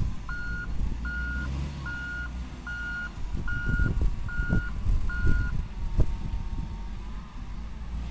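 Hitachi ZW220 wheel loader reversing: its back-up alarm beeps seven times, about one beep every three quarters of a second, then stops, over the steady low running of its diesel engine. A few sharp knocks sound from the machine, the loudest about six seconds in.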